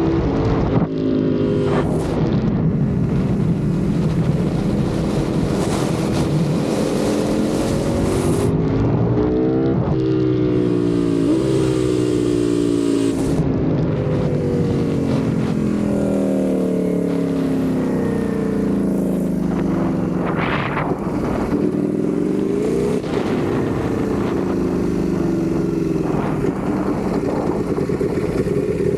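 Ducati Panigale V4 sport bike's V4 engine under way, its pitch climbing as the throttle is opened and falling away in steps as the revs come down between gears, over and over. There is a short sharp rise and a cut just before the middle, then a long slowing fall.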